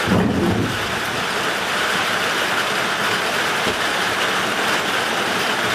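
Steady, continuous rain pouring down, with a brief low sound in the first half second.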